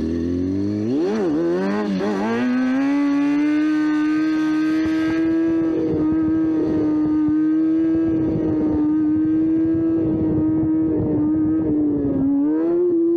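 Motorcycle engine revved up and down a couple of times, then held at steady high revs for about ten seconds, dipping briefly and picking up again near the end.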